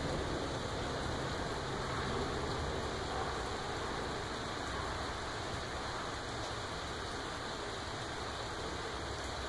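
Steady heavy rain falling, an even hiss, with a low rumble of thunder dying away over the first few seconds.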